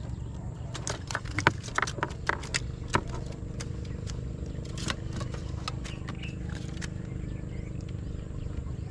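Low steady hum of a boat engine, with a run of irregular sharp knocks and clicks about one to three seconds in and a few more between about five and seven seconds.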